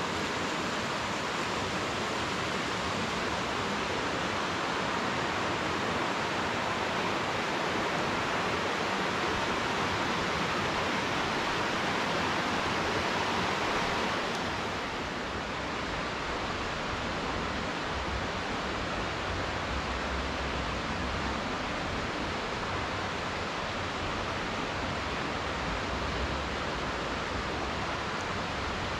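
A steady rushing hiss with no pauses, shifting slightly in tone about halfway through, with uneven low rumbles in the second half.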